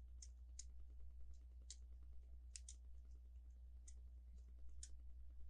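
Faint, scattered clicks and taps of Lego plastic as a minifigure is handled and fitted against the truck, about eight irregular clicks over a steady low hum.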